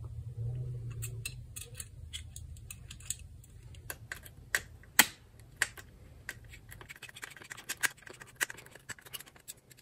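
Small metallic clicks and ticks from a screwdriver driving the aiming-adjustment screw through its spring on a headlight rim, irregular and scattered, with one sharper click about five seconds in.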